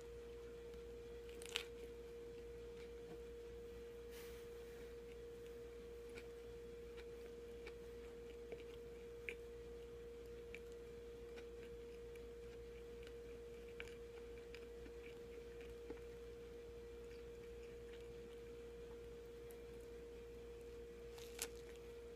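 Faint bites and chewing of a lettuce sandwich, with a sharp bite about a second and a half in and another near the end, over a steady hum-like tone.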